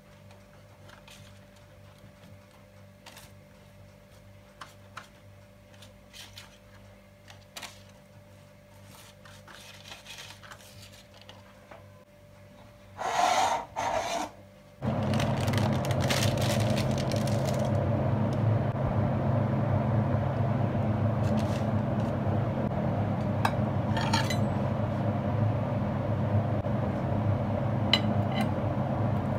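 Faint taps and clicks of kitchen handling, then two loud short bursts about halfway. A steady whirring noise with a low hum starts suddenly right after and runs on. Near the end a rolling pizza cutter clicks and scrapes against a plate through the pizza.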